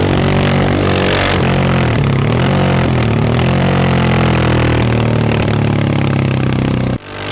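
KTM 690 SMC R's single-cylinder engine running, its revs dipping and rising about two seconds in, then holding steady. The sound cuts off abruptly near the end.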